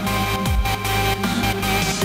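Electronic background music with a heavy steady bass and a deep falling bass hit about half a second in, part of a pattern that repeats about every second and a half.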